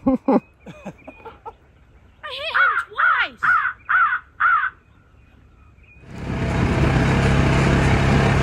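Crows cawing: a run of about five harsh caws, each bending down in pitch. About six seconds in, the steady engine and wind noise of a moving side-by-side utility vehicle takes over.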